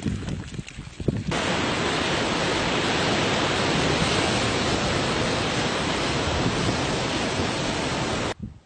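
Steady loud rushing of surf and wind at a sea cliff where lava pours into the ocean. It starts abruptly about a second in, after a few scattered clicks, and cuts off sharply just before the end.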